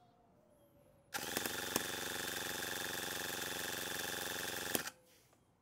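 Electric starter spinning over the Toyan FS LF200 miniature two-cylinder four-stroke gasoline engine for nearly four seconds: a steady, even whir that starts and stops abruptly, with a sharp click or two. The engine does not catch, which the owner suspects comes from the fuel premix or carburetor tuning at altitude.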